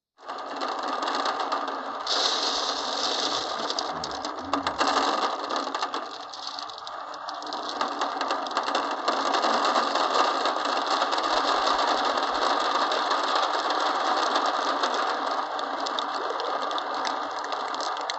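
Many glass marbles rolling and clattering down a wooden marble run, a dense continuous rattle that starts abruptly.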